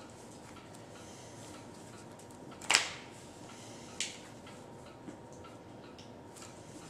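Trading cards being handled and set down on a playmat: a few sharp clicks and taps over a low room hiss, the loudest a little under three seconds in and another at about four seconds.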